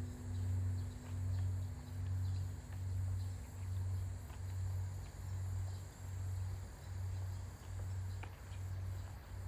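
Large Korean temple bronze bell (beomjong) ringing on after a strike. Its low hum swells and fades in slow, even beats a little under twice a second, and its higher tones die away about halfway through.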